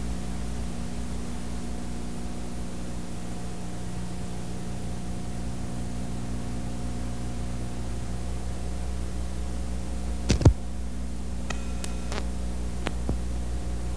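Steady hiss and low electrical hum of an old videotape recording, with a sharp click about ten seconds in and a few fainter ticks over the next few seconds.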